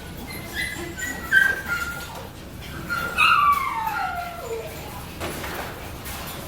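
A dog whining with short, high-pitched yelps, then one long whine falling in pitch about three seconds in.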